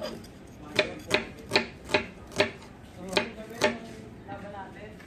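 Knife chopping on a cutting board: about eight sharp, separate strokes, unevenly spaced, over the first four seconds.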